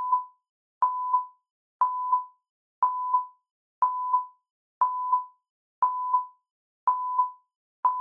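Countdown timer sound effect: a short beep with a click at its onset and a fainter second blip just after, repeating once a second, nine times, in step with the digits counting down to zero.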